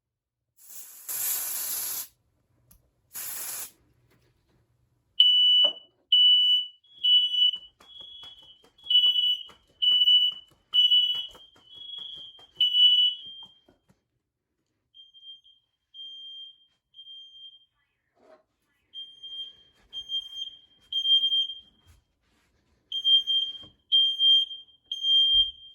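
Two short hisses of aerosol smoke-test spray, then a smoke alarm sounding: loud, high-pitched beeps about once a second, at times doubled by a second, slightly higher tone. The beeping grows faint for a few seconds midway and is loud again near the end.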